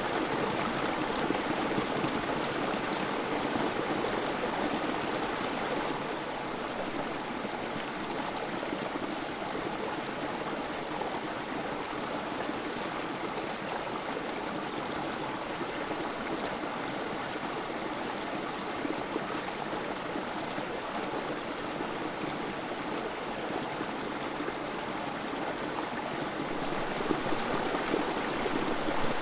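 Creek water trickling steadily over rocks, a small cascade running into a pool.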